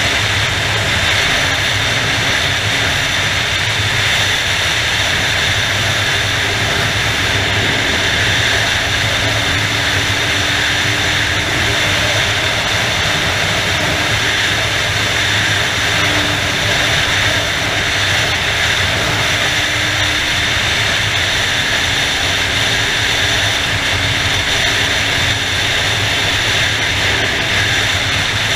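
Motorcycle riding at steady highway speed: a constant rush of wind noise with the engine's low, even drone underneath.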